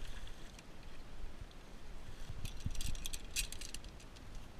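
Steel body-grip trap clinking and rattling as it is pulled up out of the water and grass, with a cluster of sharp metallic clicks around the middle. The trap has already been sprung.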